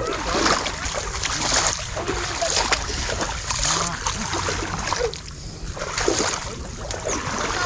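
Splashing of people wading through shallow, muddy water, in uneven surges about once a second as their legs push through.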